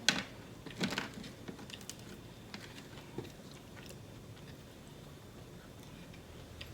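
Close-miked mouth sounds of a person eating and chewing. There are two sharp smacks in the first second, then faint scattered clicks.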